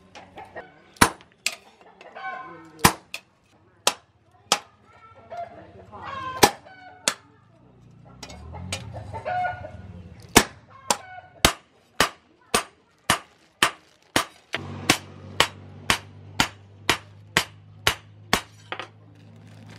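Hand hammer striking steel on a metal post anvil, in sharp ringing blows: irregular at first, then a steady run of about two strikes a second from about halfway. Chickens cluck in between the blows, and a low steady hum comes in about three quarters of the way through.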